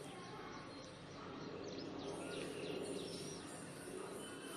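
Faint steady background noise with a few faint bird chirps.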